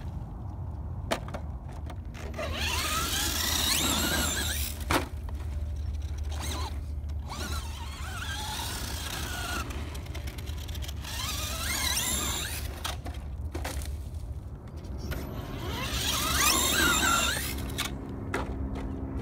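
Brushless electric motor of a 1/10-scale Traxxas Slash 2WD RC monster truck whining up and down in pitch in repeated bursts as it is throttled over loose shell-gravel dirt, with a few short knocks between bursts.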